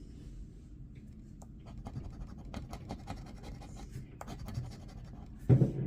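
Scratch-off crossword lottery ticket being scratched: a run of quick scraping strokes and small clicks. Near the end comes a brief, louder low sound.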